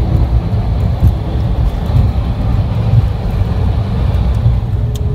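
Steady low rumble in the cockpit of a Dassault Falcon 7X rolling out along a wet runway after landing: the wheels and airframe rumbling, with the engines running underneath.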